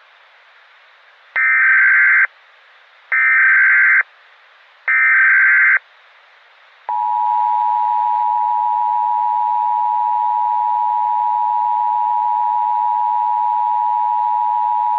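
Emergency Alert System test: three one-second bursts of SAME digital header data, then, about seven seconds in, the steady two-tone EAS attention signal, held for about eight seconds.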